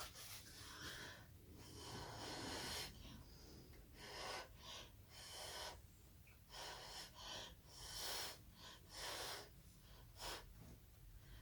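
Faint, breathy puffs of blown air in short separate bursts, roughly one a second, used to push wet acrylic paint across the canvas.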